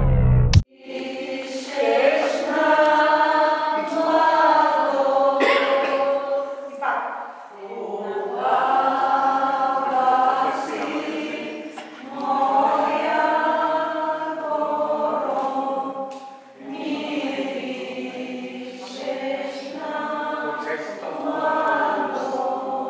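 Choir singing in long, held phrases that pause briefly about every four to five seconds.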